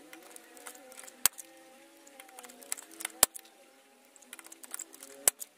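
Hand rivet gun setting blind rivets through a stainless steel patch on a bicycle frame's head tube: lighter clicks with three sharp snaps about two seconds apart.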